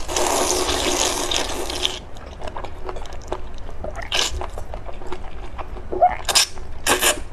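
A person slurping thick, sauce-coated spicy instant noodles off chopsticks. One long slurp of about two seconds comes first, then quieter chewing, with short slurps about four seconds in and twice near the end.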